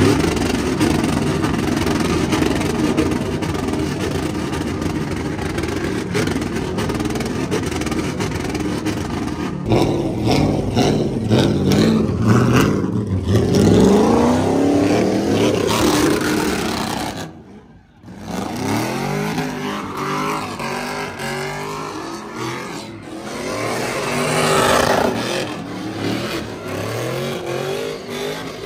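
Pickup truck engine revving repeatedly, its pitch sweeping up and falling back several times, with a brief drop-out about two-thirds of the way through.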